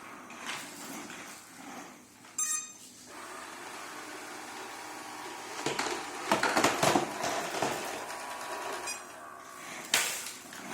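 Life V7S robot vacuum cleaner running with clicking and clattering, loudest about six to seven seconds in.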